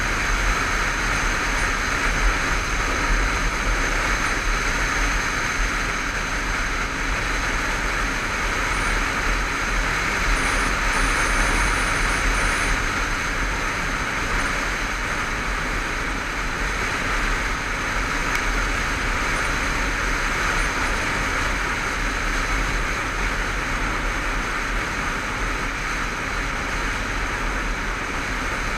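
Honda motorcycle cruising at steady road speed: a constant rush of wind over the microphone with the engine running underneath, no gear changes or revving.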